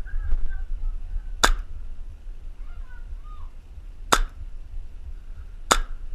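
Three single airsoft gun shots, each a sharp crack, a second and a half to two and a half seconds apart, over a steady low rumble.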